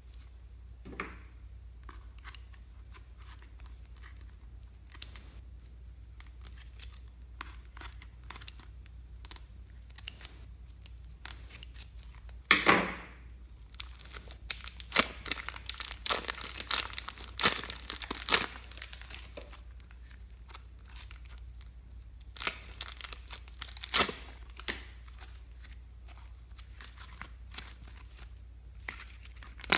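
Slime being squeezed and stretched by hand: irregular sticky crackles and pops. They come thickest a little past the middle.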